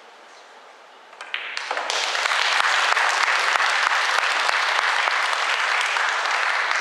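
Sharp click of pool balls from a shot about a second in, then audience applause that builds quickly and holds steady.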